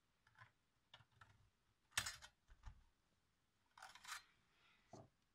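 Faint clicks and scrapes of a small tool prying loose a laptop's heatsink access cover. A sharp click about two seconds in is the loudest, followed by a scraping rattle around four seconds as the cover comes free and a last tick near the end.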